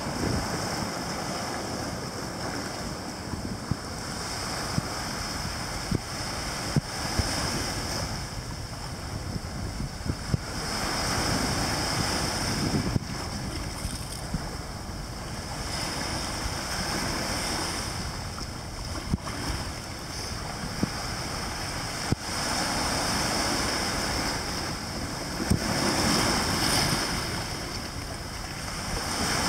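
Small waves washing up on a sandy beach, the surf swelling and ebbing every several seconds, with wind buffeting the microphone.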